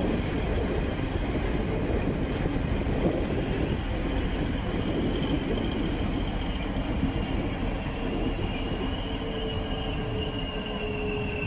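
Freight train of hopper wagons loaded with clinker rolling slowly past during shunting, a steady low rumble, with a thin high squeal from the wheels setting in about a third of the way through and growing louder toward the end.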